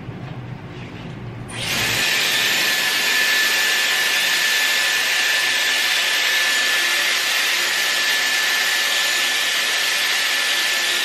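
Hot-air curling wand blowing: a steady loud rush of air with a constant high whine. It switches on about a second and a half in.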